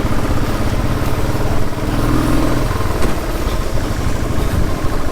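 Motorcycle engine running steadily while the bike is ridden, heard from the rider's own bike as a rapid low pulsing.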